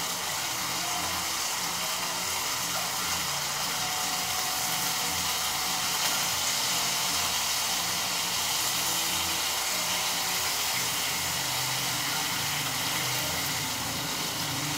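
Pork chops frying in oil in a pan, a steady sizzling hiss.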